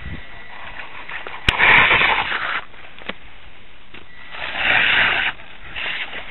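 Radio-controlled scale crawler truck driven in two short bursts on rock, each about a second long, its electric motor, gears and tyres working. The first burst, a little after a second in, starts with a sharp click; the second comes at about four and a half seconds.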